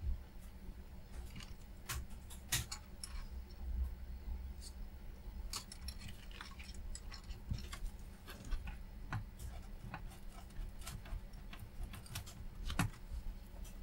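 Scattered light clicks and taps of a soldering iron and hand tools against a circuit board during desoldering with solder braid, irregularly spaced, over a steady low hum.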